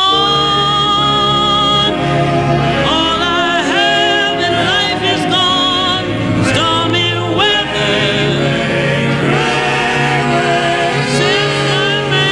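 Vocal music from a 1960 record: long held sung notes with a wide vibrato over a steady accompaniment, with no words made out.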